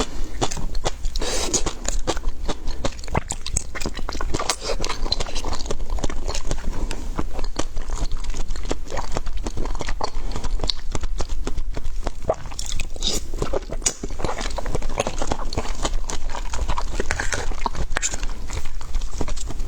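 A person chewing and crunching food, a dense run of crisp crunches and bites.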